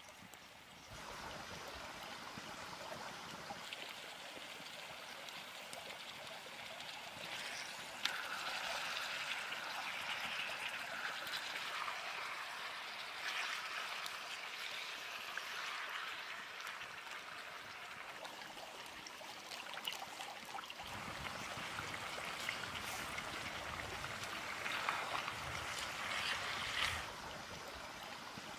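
Wet sloshing and squelching of raw beef liver pieces being mixed in their liquid in a clay pot, louder in several stretches.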